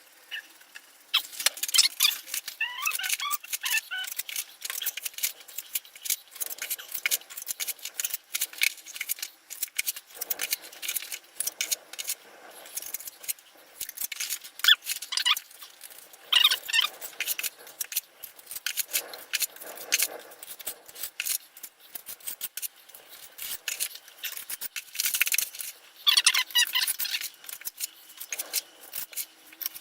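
Steel trowel scraping, clicking and squeaking against brick and mortar while mortar joints are packed and worked, in dense uneven clusters with pauses between.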